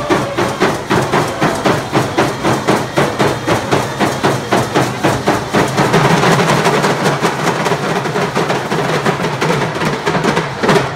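Hand drums beating a steady, fast stick-game rhythm, about three strikes a second. From about six seconds in, more sound builds between the beats, likely voices joining.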